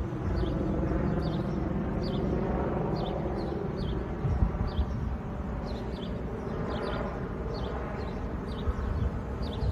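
Helicopter flying overhead: a steady drone of its rotor and engines, with a low rumble. Short high chirps recur throughout.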